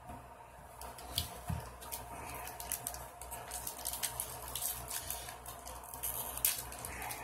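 Foil wrapper of a trading-card pack crinkling and tearing as it is pulled open by hand, a busy run of small crackles and clicks.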